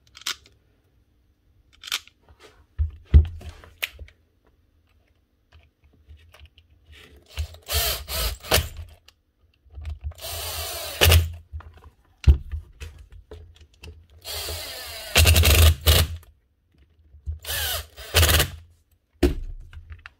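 Cordless impact driver running in four short bursts, about a second or so each, driving in the screws that hold the nibbler's head casing on. Clicks and knocks of handling the tool and parts fall between the bursts.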